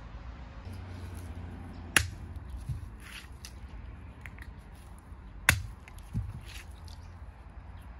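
A hand-held stone struck onto a horned turban shell to crack it open: two sharp cracks about three and a half seconds apart, each followed by a smaller knock.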